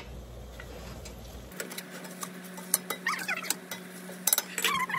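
A spatula stirring food in a pan on the stove, with scattered scrapes and sharp taps against the pan and a few short squeaks.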